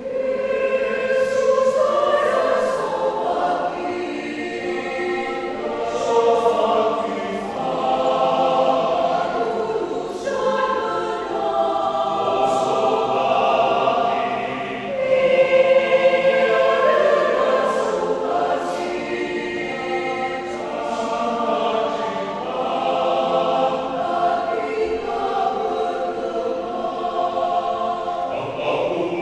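Church choir singing a hymn in several-part harmony; the voices come in suddenly right at the start.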